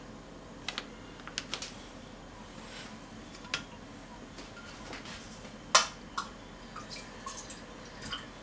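Scattered short, sharp clicks and ticks over a low steady background hum. A few come in quick pairs, and the loudest comes about six seconds in.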